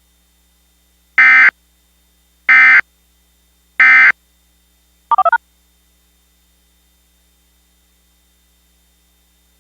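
Three short bursts of Emergency Alert System digital data tones, evenly spaced about a second and a half apart, then a quick string of about four DTMF touch-tones. These are the control tones a cable system uses to trigger the channel switch to the emergency message.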